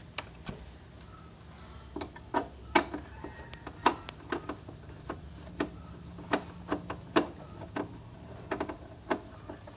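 Irregular sharp clicks and taps of a screw and tool against a motorcycle's cover panel and frame as the screw is undone, roughly two a second at uneven spacing.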